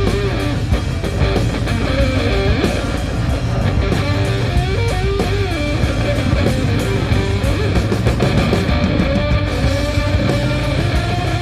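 Rock music led by an electric guitar melody.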